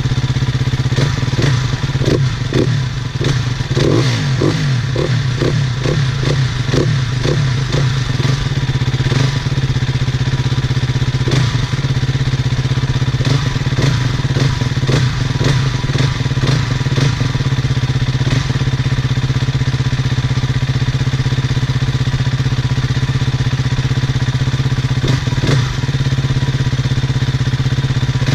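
Husqvarna TE250 enduro motorcycle engine idling steadily at an even pitch, warming up after standing unused. A quick run of light knocks or clatter comes from about two to seven seconds in, with a few more later.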